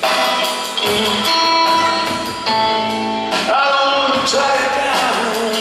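Live rock band playing a slow passage: electric guitar holding long, bending notes over upright bass and a drum kit's cymbals.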